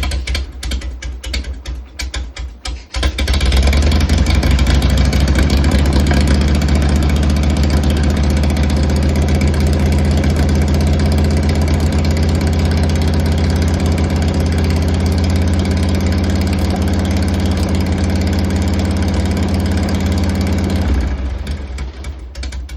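Harley-Davidson Shovelhead V-twin engine cranking for about three seconds, then catching and running steadily; near the end its sound drops lower. This is its first start after a top-end rebuild.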